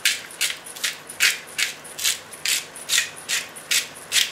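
Hand-twisted pepper mill grinding black peppercorns: a steady run of short grinding strokes, about three a second.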